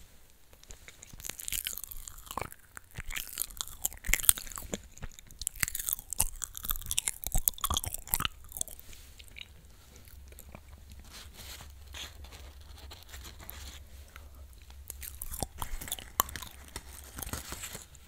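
Close-miked chewing of crunchy food, with dense crisp crunches. A long run starts about a second in, eases off midway, and a shorter run of crunching comes near the end.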